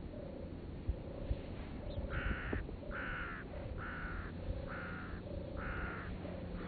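An animal calling five times, about a second apart, over a steady low rumble and a lower note that repeats evenly.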